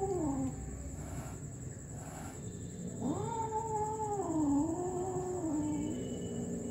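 A cat meowing in long, drawn-out calls. One call falls in pitch and ends about half a second in. Another starts about three seconds in and lasts about three seconds, wavering and dipping in pitch midway.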